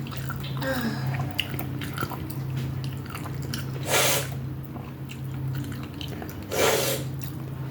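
Eating sounds: chewing, with two short, loud noisy bursts about four and six and a half seconds in, over a steady low hum.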